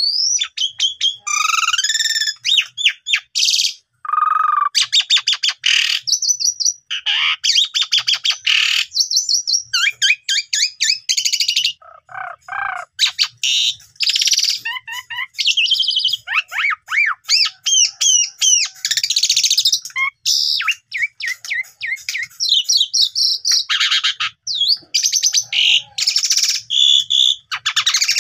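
Asian pied starling (jalak suren) singing a long, varied song of whistles, slurred rising and falling notes and fast chattering runs, with only brief pauses.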